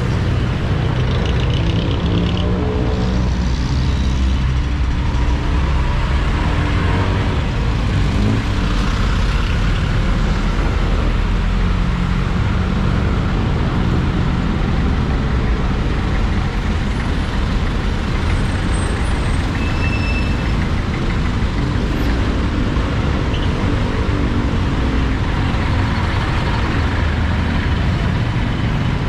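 Motorcycle engine running under way, its pitch rising and falling with the throttle, with steady wind and road noise on an action camera's built-in microphone.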